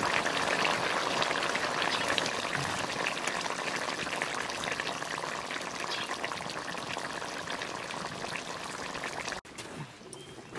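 A watery parwal and chicken keema curry boiling hard in a kadai: a dense, steady crackle of bursting bubbles. It cuts off abruptly near the end.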